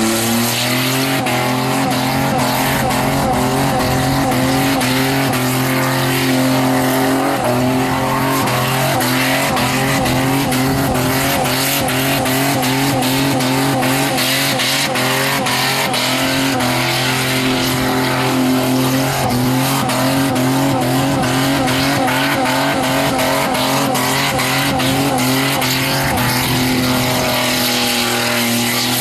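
Holden VN Commodore's Buick V6 held at high revs through a burnout, the note wavering slightly, over the steady hiss of the rear tyres spinning on the track. The revs climb right at the start and begin to drop near the end.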